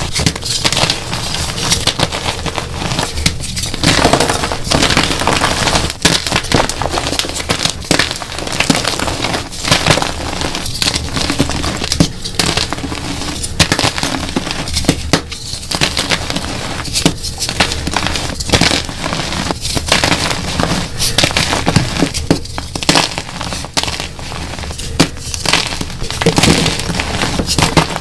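Dyed gym chalk blocks being crushed and crumbled by hand, a dense, continuous run of crunching and crackling with many sharp snaps as pieces break off and powder falls.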